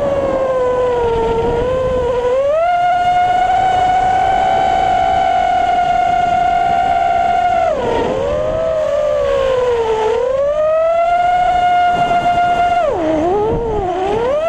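Brushless motors and propellers of an FPV racing quadcopter whining at high throttle on a fast pass, with air rushing past the onboard camera. The pitch climbs about two seconds in and holds, drops and climbs back around eight seconds in as the quad banks through a turn, and dips sharply again near the end.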